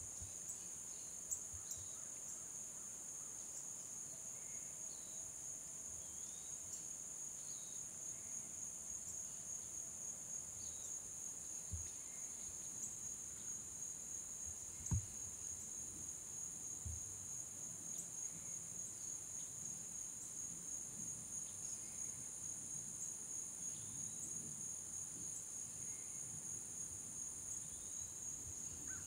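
Steady, high-pitched drone of a summer insect chorus, with scattered faint short chirps over it. A few dull low thumps, the loudest about halfway through.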